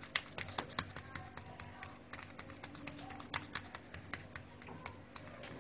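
Oiled hands patting and pressing folded msemen dough flat on a granite worktop: a run of irregular soft taps and slaps.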